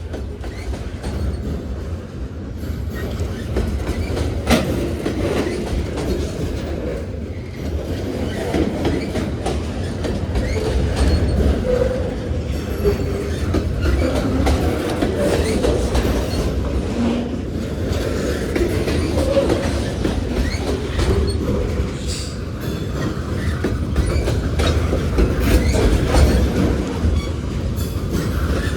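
Union Pacific freight train's cars rolling past at speed: a steady low rumble of steel wheels on rail with clickety-clack over the rail joints and brief faint wheel squeals.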